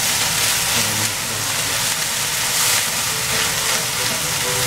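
Sliced pork and green vegetables sizzling steadily in a hot wok as they are stirred with wooden chopsticks.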